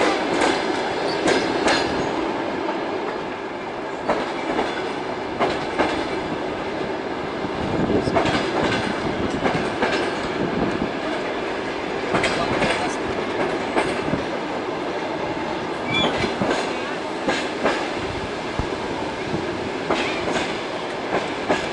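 Passenger train carriage running, heard from inside the car: a steady rumble with irregular clacks of the wheels over the rail joints.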